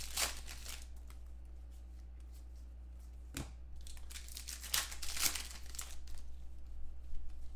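Plastic wrappers of Contenders football card packs crinkling and tearing as the packs are opened and handled, in a few short crackly bursts over a steady low hum.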